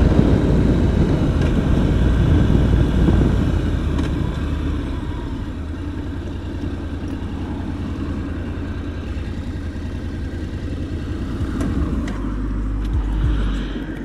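Honda NC750X motorcycle's parallel-twin engine running at road speed, with a steady rumble of wind and road noise; louder for the first few seconds, then quieter.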